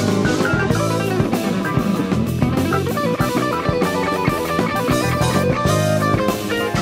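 Instrumental band playing live with electric guitar, keyboards, electric bass and drum kit, with quick runs of notes over a steady bass and drums.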